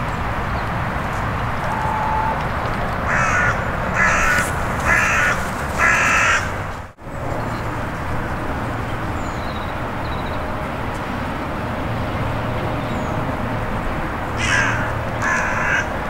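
Carrion crow cawing: four evenly spaced caws, a brief break in the sound, then two more caws near the end.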